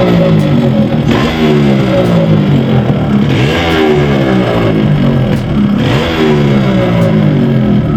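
Yamaha RX 135 two-stroke single-cylinder engine running and being revved, its pitch sliding down and swinging back up a few times. The engine has a piston noise that the owner puts down to a loose, worn piston.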